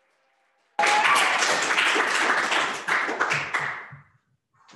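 Clapping from a small group, dense sharp claps that start about a second in and taper off near the end.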